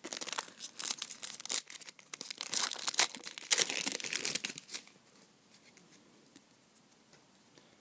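Foil wrapper of a trading card pack being torn open and crinkled by hand, a dense crackling for about five seconds that then stops.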